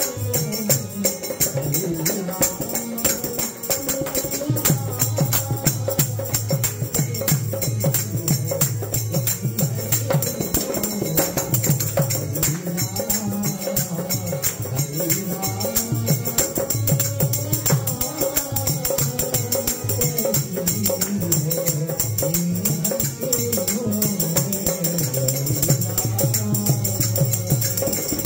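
Harmonium music with a man singing over it, accompanied by hand-clapping that keeps a steady beat.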